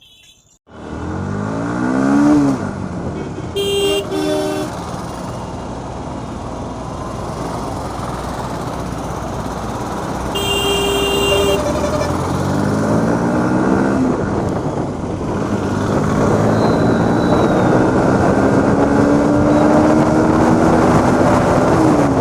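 Bajaj Pulsar RS200 engine accelerating hard through the gears: its pitch climbs in quick rises, then in one long steady climb near the end, over heavy wind noise on the microphone. A vehicle horn sounds briefly twice, about four and eleven seconds in.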